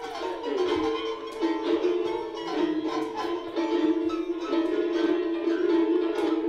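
Music: held tones under a run of quick plucked-sounding notes.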